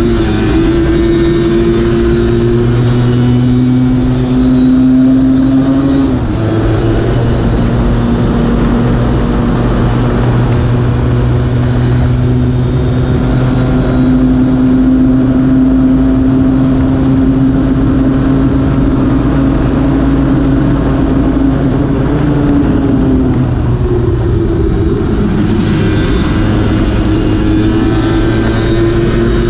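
Lambretta RB20-engined racing scooter's two-stroke engine running hard at racing speed, held at steady high revs. The engine note steps down about a second in, shifts again around six seconds and climbs near the end.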